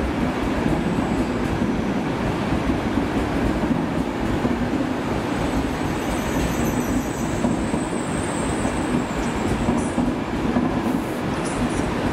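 PKP Intercity passenger coaches rolling past close by: a steady rumble of wheels on the rails, with a faint high squeal from the wheels for a few seconds in the middle.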